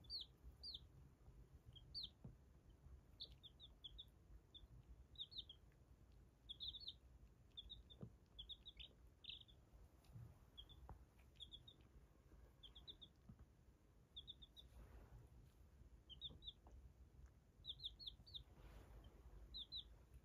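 Baby chicks peeping faintly: short, high, falling chirps in little runs of two to four, coming every second or so.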